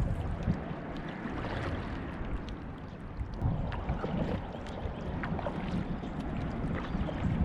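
Water lapping and splashing around a kayak on a lake, with low gusts of wind on the microphone and a few faint clicks.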